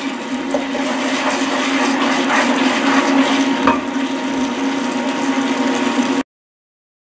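Curry paste with brown sugar sizzling and bubbling as it caramelizes in a pan, stirred and scraped with a wooden spoon, over a steady low hum. The sound cuts out abruptly about six seconds in.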